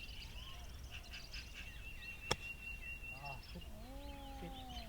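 A single sharp crack of a golf club striking the ball, a little over two seconds in, over a background of birds chirping and calling.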